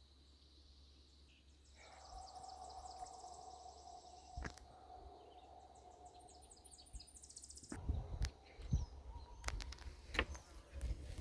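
Songbirds singing high, rapid trills, twice, over a faint steady hum, with a sharp click about four seconds in. In the last few seconds, low irregular rumbles and a few sharp clicks come in.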